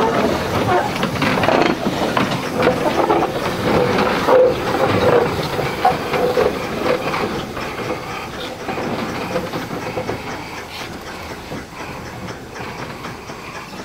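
A Darjeeling Himalayan Railway narrow-gauge saddle-tank steam locomotive working past with its wagons: steam hissing and exhaust chuffing over the clatter of wheels on rail, slowly fading toward the end.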